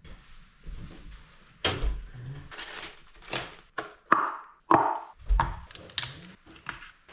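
A string of knocks and clunks with a few short scraping rustles, about a dozen in all, as objects are handled and set down on wood.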